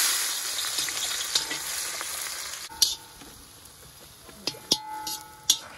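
Chopped red onions hit hot oil in an iron kadai with a sudden loud sizzle that slowly dies down. About three seconds in the sizzle drops quieter, and a metal slotted spoon stirs the onions, clinking and scraping against the pan a few times near the end.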